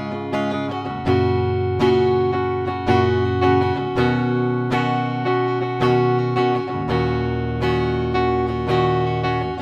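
Ibanez GRG121SP electric guitar played clean through its neck humbucker: picked chords ringing out, with a new chord about once a second.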